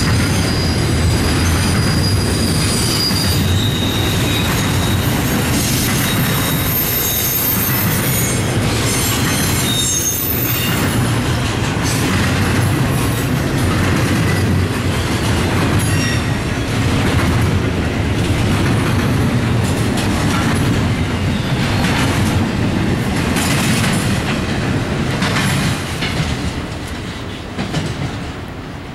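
Double-stack intermodal freight cars rolling past: a steady rumble of steel wheels on rail with repeated clicks, and thin high wheel squeals in the first ten seconds or so. The sound fades near the end.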